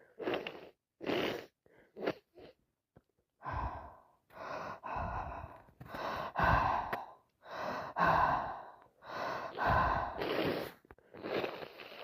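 A person in a sneezing fit: a few short gasping catches of breath at first, then from about three seconds in a steady run of loud voiced gasps and bursts, roughly one every 0.8 seconds.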